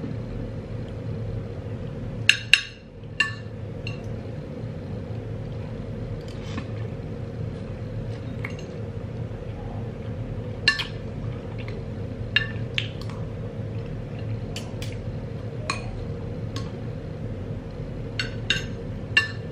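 Metal spoon clinking and scraping against a small ceramic bowl while eating, a dozen or so light taps scattered through, over a steady low background hum.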